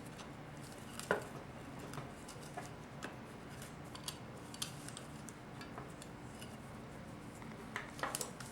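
Scattered light metallic clicks and taps of small steel vanes being worked into a 4L60E transmission oil pump rotor, which are a tight fit. The sharpest click comes about a second in, and there is a quick cluster of clicks near the end.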